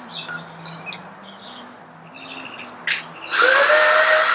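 Power drill spinning up about three seconds in and running at a steady, high whine, drilling mounting holes for fender flares. Before it come a few faint short chirps and a low hum.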